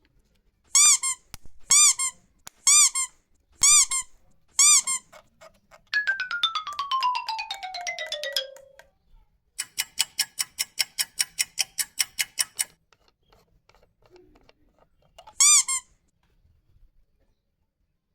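Playful squeaky sound effects: five short squeaks about a second apart, then a falling whistle-like glide, then a quick run of about fifteen short even tones, and one more squeak near the end.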